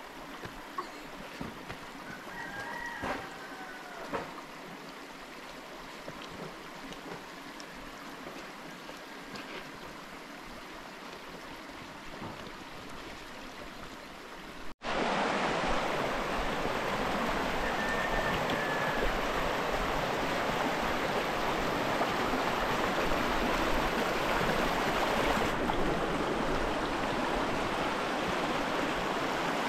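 A stony stream rushing steadily, loud and even, which comes in with a sudden cut about halfway through. Before that there is quieter outdoor background with scattered light clicks and a short bird chirp.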